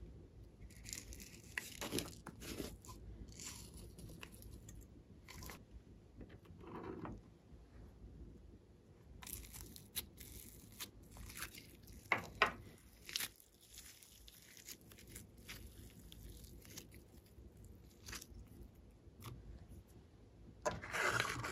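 Slime and clay handled by hand: irregular crackling and squishing as clay pieces are pulled apart and glitter slime is scooped out of a plastic pot. The loudest burst comes near the end.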